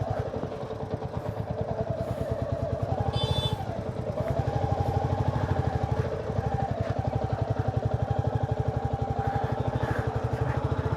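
Motorcycle engine running at low speed, pulsing evenly, with small changes in pitch as it creeps along in traffic. About three seconds in, a short high-pitched vehicle horn sounds.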